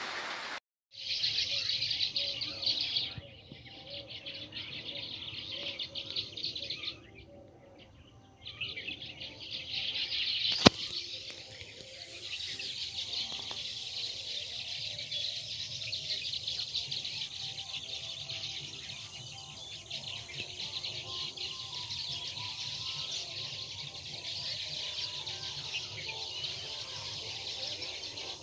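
Many birds chirping together in a dense, high-pitched chorus that drops out briefly about three seconds in and again around seven to eight seconds in. A single sharp, loud click about ten and a half seconds in.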